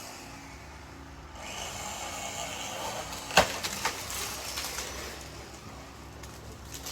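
A felled tree cracking and splintering as it comes down: a rising rush of branches, one sharp loud snap about three and a half seconds in with a few smaller snaps after it, then the rush dying away.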